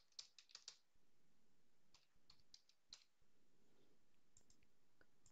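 Faint computer keyboard typing: three short runs of key clicks with pauses between them.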